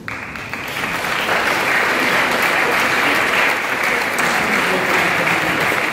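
Audience applauding in a hall: the clapping starts abruptly, builds within the first second and then holds steady.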